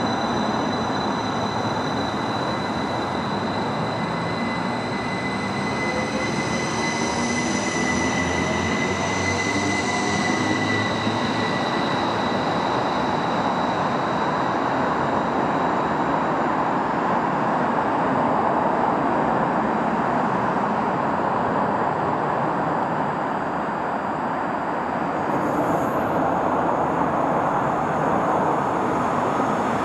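Electric multiple-unit trains running through the station, with steady wheel-on-rail noise throughout. At first a Northern Class 331 pulls away with a whine from its traction equipment that rises in pitch and fades after about ten seconds. A Class 333 then runs past on the far track.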